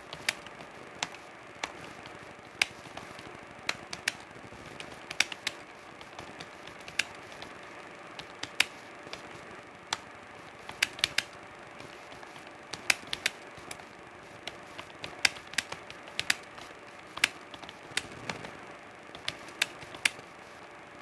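Keys being typed on a computer keyboard: sharp clicks at an uneven pace, about two or three a second, some bunched in quick runs. A faint steady hum sits underneath.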